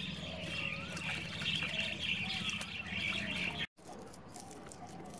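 Water running from a garden hose and splashing into a tub as lettuce leaves are rinsed under it, a steady hiss. It cuts off abruptly about three and a half seconds in, leaving a quieter background.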